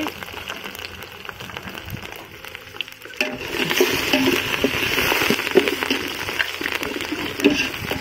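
Garlic, curry leaves and whole spices sizzling as they fry in hot oil in an aluminium pot, with a metal slotted spoon scraping and tapping the pot as it stirs. The sizzle grows suddenly louder about three seconds in.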